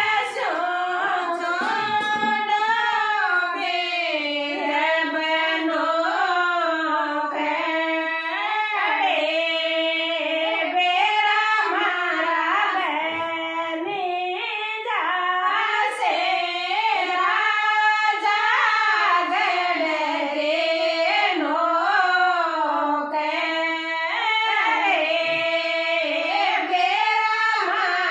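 Women singing an old Rajasthani folk song with no instruments: a single slow, wavering melody line, held and ornamented, pausing briefly for breath.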